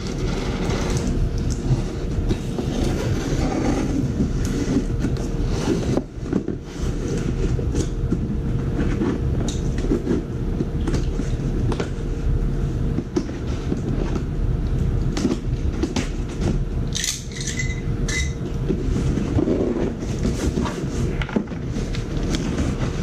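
Knife slitting packing tape on a cardboard box, with scrapes and clicks of the box being handled on a wooden floor. Under it, a loud steady low rumble with a constant hum.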